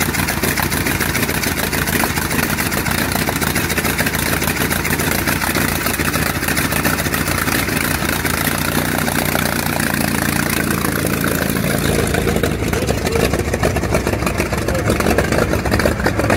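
The 1905 Darracq 200 hp's 25-litre V8 running stationary through open exhaust stubs: a loud, rapid stream of firing pulses. The note shifts about twelve seconds in, losing some of its top and gaining a lower middle tone.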